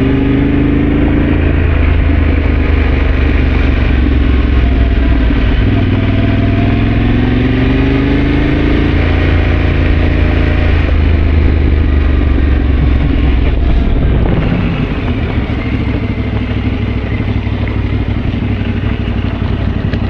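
Yamaha Ténéré adventure motorcycle engine under way on a gravel road, pulling up in pitch as it accelerates twice, then easing off and quieter from about two-thirds of the way through.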